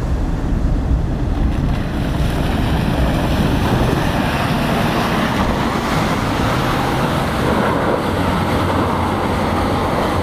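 Lexus LX470's V8 engine working hard as the SUV ploughs through deep liquid mud, tyres churning and splashing mud and slush, with wind buffeting the microphone.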